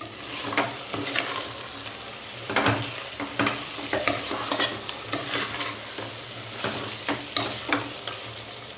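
A metal spoon stirring thick, oily spiced chicken masala in a pot, with irregular scrapes and knocks against the pot a few times a second over a steady sizzle from the frying masala.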